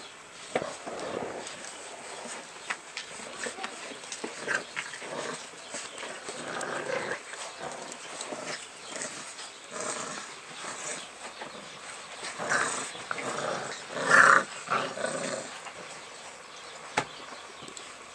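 American bulldog puppies play-fighting, growling in uneven short bursts, with the loudest flurry toward the end.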